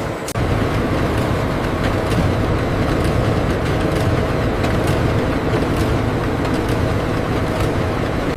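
Steady factory machinery running: a continuous low rumble with a faint steady hum and light ticks about once a second.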